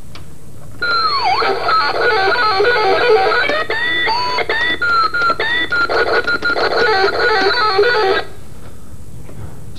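A short electric guitar solo of quick runs with string bends: one dip in pitch near the start, then several rising bends, cutting off suddenly near the end.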